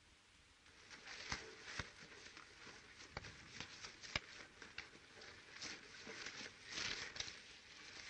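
Scuffle of two men fighting on dirt among dry brush: rustling and shuffling, with a few sharp knocks of blows or bodies hitting the ground in the first half.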